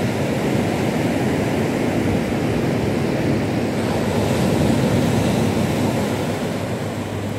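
Waves breaking on the beach, a steady wash of surf noise, mixed with wind rumbling on the microphone.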